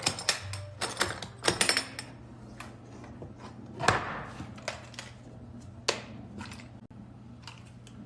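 Irregular clicks and knocks of a plastic TV back cover being fitted and its screws turned, over a low steady hum.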